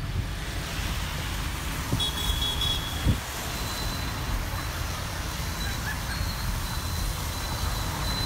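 A car driving on a wet road, heard from inside the cabin: steady engine and road rumble with a hiss of tyres. Two short knocks come about two and three seconds in, and a brief high-pitched beeping about two seconds in.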